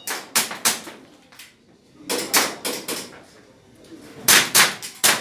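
Airsoft pistol firing a string of sharp shots in quick groups of two to four, with short pauses between the groups.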